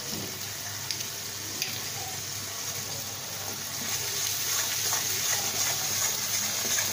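Ground spice paste sizzling in hot mustard oil in a kadai as it is stirred and fried down with a metal spatula, a steady hiss that grows louder about four seconds in. Two light clicks in the first two seconds.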